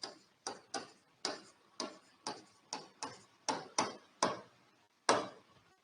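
Light, irregular clicks of a pen tapping on a writing surface, about two a second.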